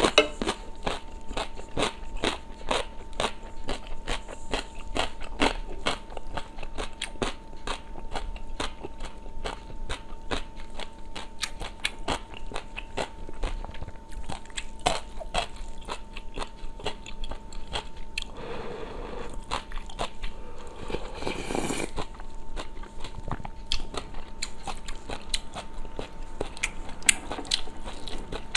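Close-miked eating sounds: steady chewing and crunching with many quick wet mouth clicks, and two longer slurps of soup about two-thirds of the way through. A faint steady hum runs underneath.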